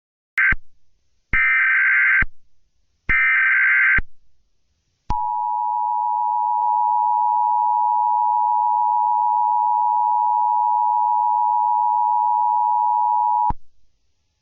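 Emergency Alert System tones: three short bursts of buzzing SAME header data, then the steady two-tone attention signal held for about eight seconds before cutting off abruptly. They signal the start of an emergency alert broadcast.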